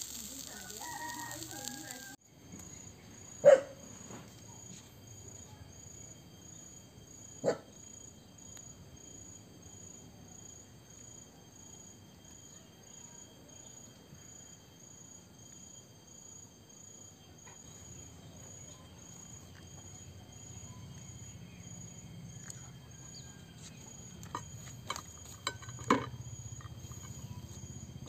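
Charcoal-roasted chicken hissing over the coals at the start, then a quiet outdoor scene with chickens and a rooster calling in the background and steady high-pitched insect calls. A few sharp knocks and clinks come as the skewered roast chicken is handled and set on a plate: one loud knock a few seconds in, another a few seconds later, and a quick cluster near the end.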